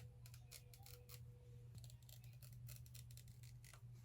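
Near silence: faint, scattered small clicks and handling noises over a low steady hum.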